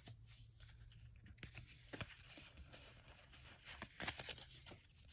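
Pokémon trading cards being slid and shuffled through in the hands: faint papery rustling and flicks of card against card, with a couple of louder snaps about two and four seconds in.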